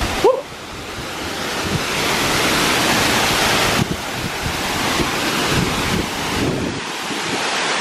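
Waterfall pouring into a shallow, rocky pool: a steady rush of water noise that rises in level over the first two seconds, with wind on the microphone.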